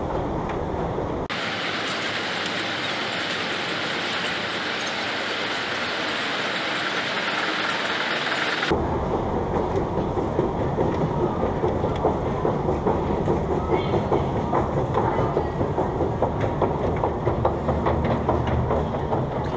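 Long, deep metro escalator running, a steady mechanical rumble and rush. The sound changes abruptly about a second in to a hissier rush, and back about nine seconds in, when a rapid rhythmic clatter of the moving steps takes over.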